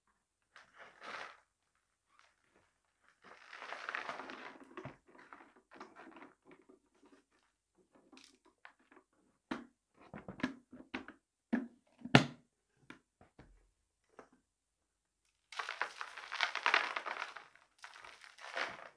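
Small beads, pebbles and shell bits rattling and pouring into a cardboard box. There are short bursts of clatter, a run of separate sharp clicks in the middle, and a longer pour a few seconds before the end.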